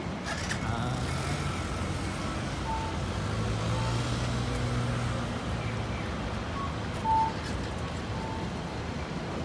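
Street traffic: a motor vehicle's engine hums past, with short high beeps a few times, the loudest about seven seconds in.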